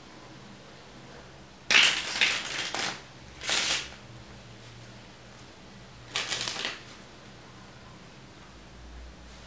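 A deck of playing cards being shuffled by hand, riffling in three bursts: a long one about two seconds in, a short one soon after, and another about six seconds in.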